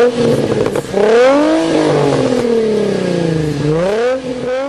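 An engine revving, its pitch gliding up and down. It holds high, dips briefly about a second in and climbs again, then falls slowly for a couple of seconds before rising once more near the end.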